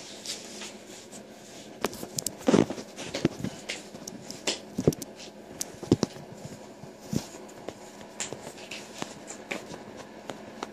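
Scattered knocks, taps and rubbing from handling and movement close to the microphone on the floor, with one louder thump about two and a half seconds in.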